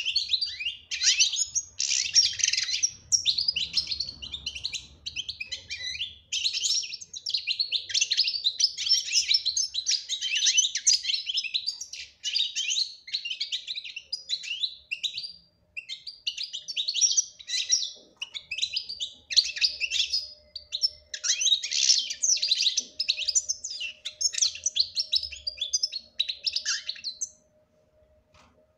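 European goldfinch singing: a long run of fast, high-pitched twittering and trills in phrases broken by short pauses, stopping near the end.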